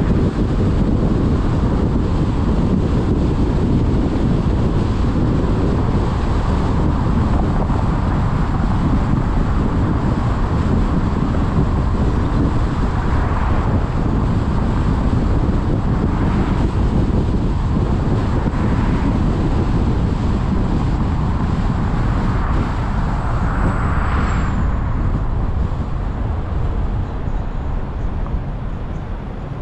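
Car driving along city streets: steady road and wind noise with a low rumble, rising in a few brief swells, the largest about 24 seconds in, and easing off slightly near the end.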